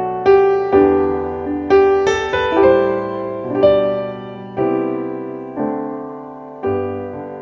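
Piano intro of a slow worship song: chords struck about once a second, each ringing and fading before the next, with no singing yet.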